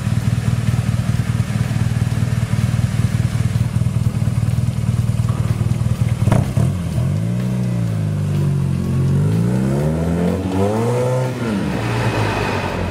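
Flat-twin motorcycle engine idling through a Turbokit aftermarket silencer, steady and even. About six seconds in there is a knock, and then the bike pulls away, its engine note rising and falling twice.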